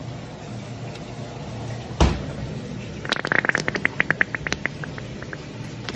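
A sharp knock about two seconds in, then a plastic squeeze bottle sputtering as aioli and trapped air are squeezed out of its nozzle: a quick run of wet pops that slows and fades near the end.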